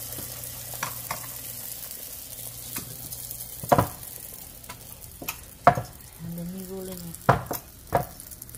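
Fry bake dough frying in hot oil in a steel pan, sizzling steadily, with several sharp knocks and taps of kitchen work in the second half.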